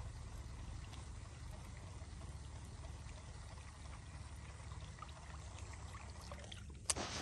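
Faint trickle of water over a low steady rumble as a fishing lure is drawn back through the pond water, with one sharp click near the end.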